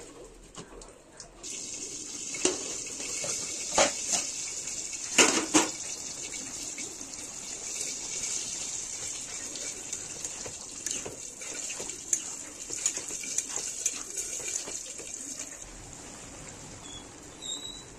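Wild mushrooms cooking in their released juices in a kadai: a steady sizzling and bubbling hiss that starts about a second and a half in, with a few sharp metallic clanks in the first six seconds.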